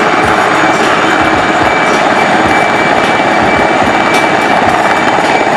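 IAR 330 Puma twin-turbine helicopter hovering low: a loud, steady rotor thump with a high, steady turbine whine over it.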